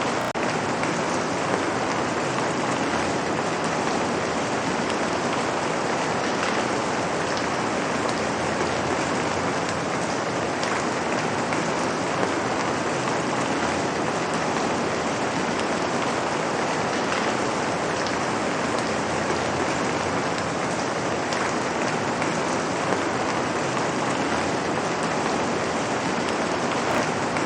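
Light rain falling on pavement: a steady patter of drops hissing evenly, with a few sharper drop ticks now and then.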